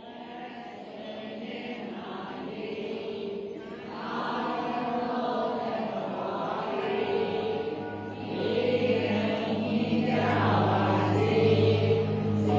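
Song intro of chant-like voices over sustained tones, swelling gradually louder, with a deep bass coming in about ten seconds in.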